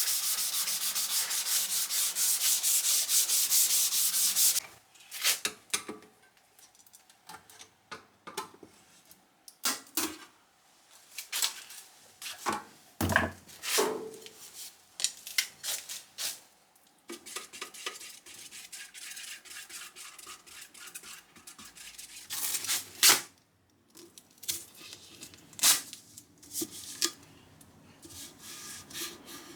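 Hand wet-sanding of car body paint with 500-grit wet-or-dry paper on a rubber block: a fast, even back-and-forth rubbing for the first four or so seconds, then stop-start short scrapes and a few knocks. The rubbing is flatting the panel until a black guide coat disappears, ready for respraying.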